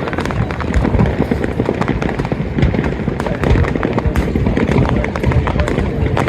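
Fireworks display going off continuously, a dense run of many rapid bangs and crackles over a steady low rumble.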